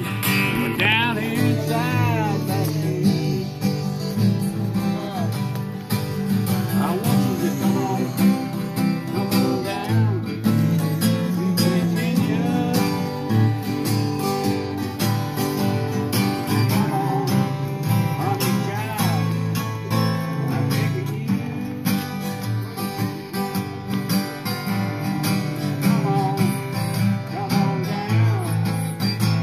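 Two acoustic guitars played together, strummed and picked in a country style.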